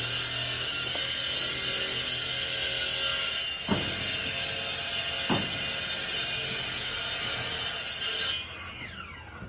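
A power tool runs steadily, then shuts off about eight seconds in and winds down with a falling whine. Two sharp taps about a second and a half apart come as a brick is pressed into its mortar bed.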